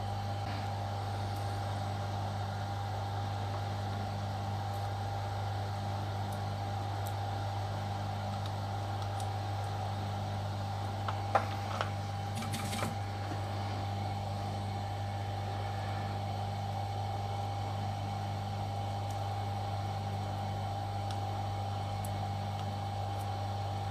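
Steady low hum with a thin constant tone running through it, and a few faint clicks about halfway through.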